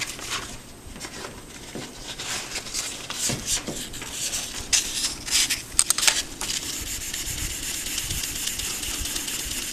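Fine 2000-grit wet/dry sandpaper on a backer rubbed by hand over the edge of a granite countertop, smoothing a filled chip. Scattered short scratchy strokes give way, about two-thirds of the way in, to a steadier rubbing hiss.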